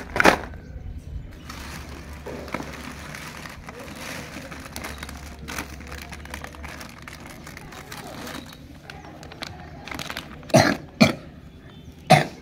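Plastic packaging crinkling and rustling as toys are handled. Near the end a boy coughs three times.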